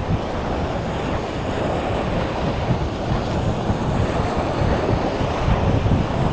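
Surf washing onto a sandy beach, with wind buffeting the microphone in uneven low gusts.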